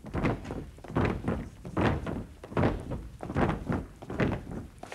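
Footsteps of hard shoes on wooden stage boards, an even walking pace of about one step every 0.8 seconds.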